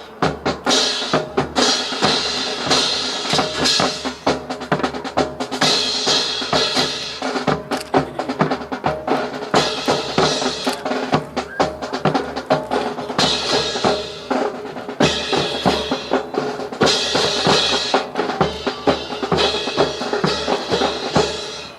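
Drum-led music with rapid snare-drum strokes and rolls over bass-drum beats, played loud.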